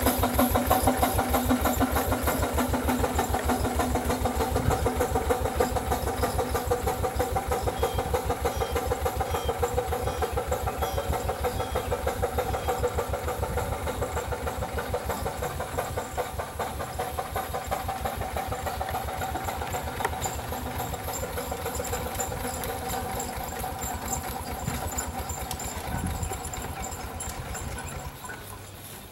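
5/8-scale Wood Brothers 22-70 steam traction engine running under way, its exhaust beating out a fast, even chuff with some steam hiss. It grows steadily fainter as it pulls away.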